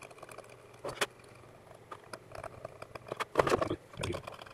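Small metal blade ticking and scraping on a circuit board, chipping away hardened conformal coating from a chip. About three and a half seconds in comes a louder knock and rustle of the plastic drive enclosure being handled.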